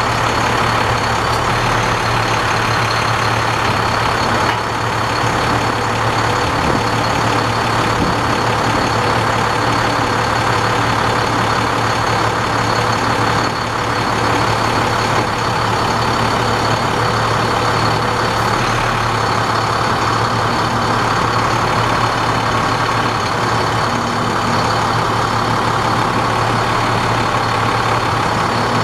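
An engine running steadily at an even speed, with a thin, steady high whine above it.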